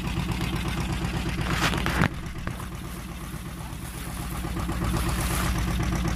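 Fishing boat's engine running with a steady, rapid beat. A sharp knock about two seconds in, after which the engine is a little quieter, then gradually louder again.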